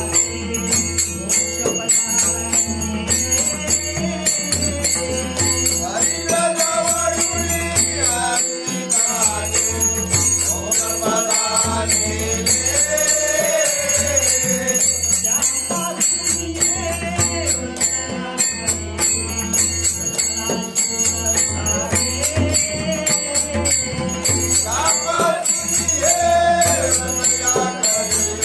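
A group singing a Marathi aarti together, led by a voice on a microphone, over rhythmic hand-clapping, jingling percussion and a pulsing low beat.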